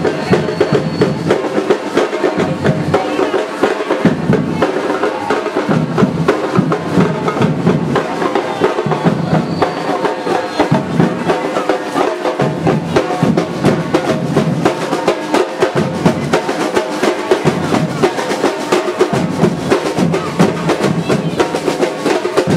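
Batucada drum group playing a steady, dense drum rhythm without a break.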